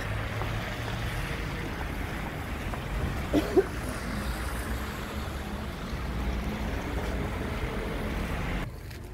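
Steady wind and rain noise buffeting a phone microphone outdoors, with a brief wavering tone about three and a half seconds in. The noise drops off suddenly near the end as the doors open onto the quieter shop.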